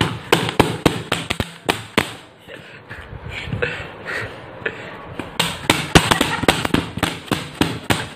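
An empty plastic water bottle being whacked repeatedly, sharp knocks about two to three a second. They thin out in the middle and come thick and fast again from about five seconds in.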